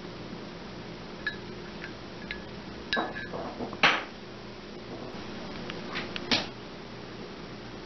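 A few light clicks and pings, then louder knocks about three, four and six seconds in, over a steady low hum.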